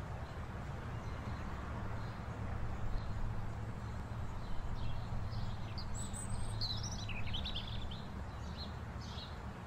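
Outdoor ambience: a steady low background rumble, with small birds chirping from about halfway through, busiest a little after.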